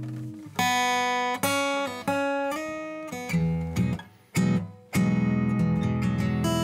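Solo fingerstyle playing on a Timberline T65 GAc grand auditorium cutaway acoustic guitar, solid acacia back and sides with a solid Western Red Cedar top. A ringing chord fades, then single notes are plucked about every half second to second, with a brief near-stop around four seconds. From about five seconds in, fuller sustained chords ring over bass notes.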